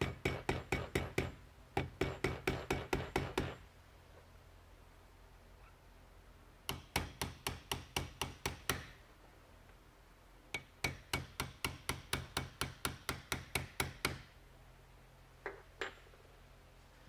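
Small hammer tapping steel roll pins into a rifle's butt spike module, striking the pins and a metric pin punch in quick runs of light taps, about five a second. Four runs with short pauses between them, then two single taps near the end.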